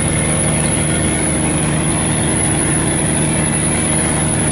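Steel cargo barge's diesel engine running steadily under power as it backs off the landing, a constant low hum that neither rises nor falls.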